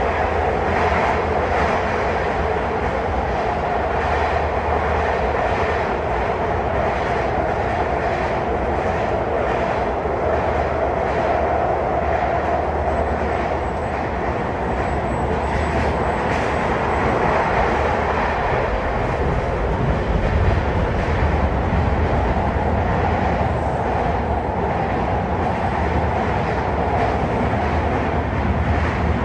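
MARTA heavy-rail car running at speed, heard from inside the car: a steady rumble of wheels and motors, with faint regular clicks of the wheels over rail joints.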